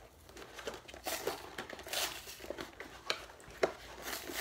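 Cardboard-and-plastic blister packaging of a Crayola Washable Kids' Paint Palette crinkling and rustling in irregular bursts as it is pulled open by hand, with one sharp snap about two-thirds of the way through.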